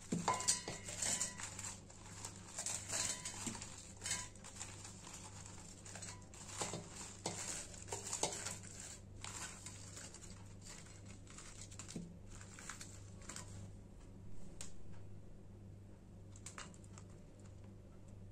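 Dried Kashmiri red chillies crackling and rustling as they are tipped by hand into a stainless-steel grinder jar, in irregular bursts that are busiest in the first few seconds and thin out later into scattered light taps.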